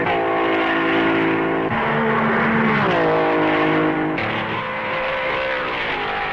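1950s Grand Prix racing car engines running hard at high revs, a steady note whose pitch drops about a second and a half in and slides down again around three seconds in.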